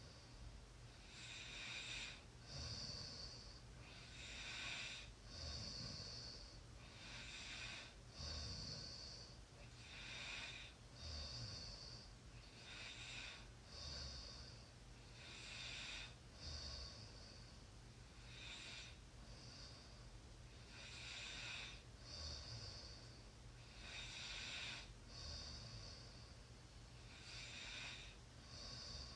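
A person snoring softly: a steady rhythm of breaths in and out, one full breath about every three seconds, some with a faint low rattle.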